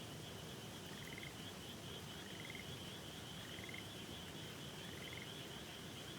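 A frog calling four times, each call a short rising trill about a second and a quarter apart, over a steady higher trilling chorus and the faint continuous rush of a river.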